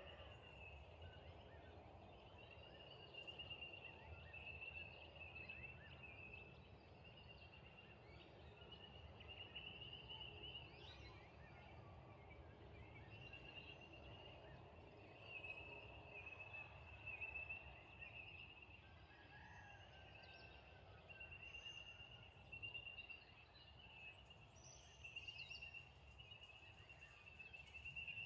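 Faint outdoor dusk ambience: a steady high-pitched trilling that comes and goes in long stretches, with a few short, higher chirps and a low rumble underneath.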